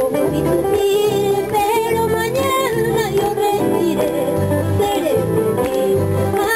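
Live Andean folk music: a woman singing into a microphone over acoustic guitar and keyboard, with low bass notes pulsing about twice a second.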